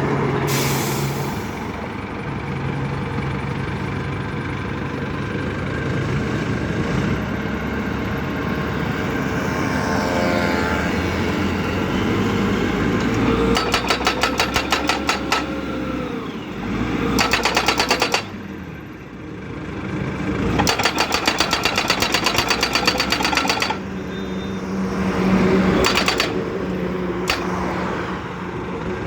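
DDIPL DD950B crash-barrier pile driver with its engine running, its hammer striking in four bursts of rapid, evenly spaced blows as it drives a barrier post.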